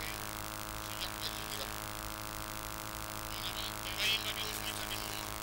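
A steady droning hum under the scattered voices of an outdoor crowd, with a short, louder burst of voices about four seconds in.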